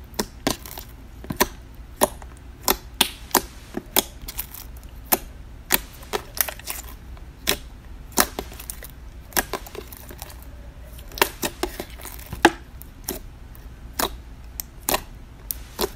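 Black slime being handled, giving sharp, irregular clicking pops about two a second.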